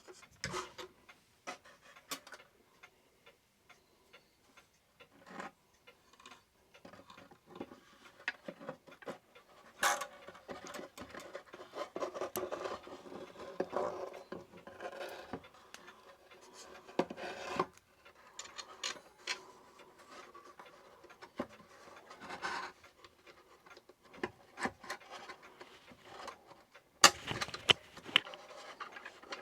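Irregular clicks, knocks and scraping as clock chime bars and their fittings are worked into a wooden clock case, with a couple of louder knocks near the end.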